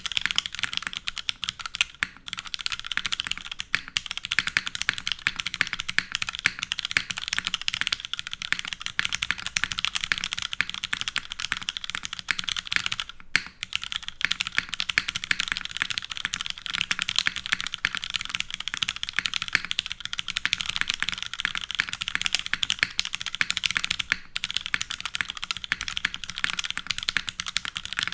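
Fast, continuous typing on a Merisi Ottantaquattro custom mechanical keyboard with leaf-swapped vintage Cherry MX Black linear switches in a full aluminium plate, under GMK keycaps. The keystrokes run densely, with a few brief pauses, the longest about 13 seconds in.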